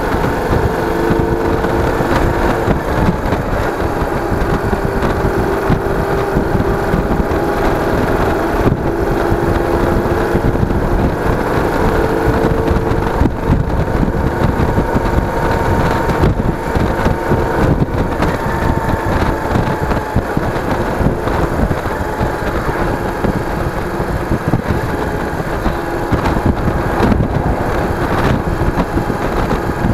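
Yamaha DragStar Classic V-twin cruiser being ridden at steady road speed, its engine running under light, even throttle, with heavy wind rushing over the action camera's microphone.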